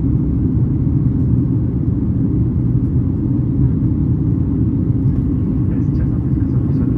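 Steady low rumble of engine and airflow noise inside the cabin of a Boeing 737 MAX 8-200 airliner in flight, from its CFM LEAP-1B engines.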